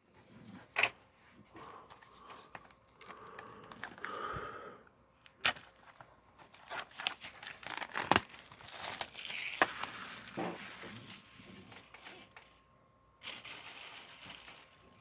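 Plastic shrink-wrap being torn and crinkled off a DVD case, with scattered sharp clicks and rustles as the packaging is worked open.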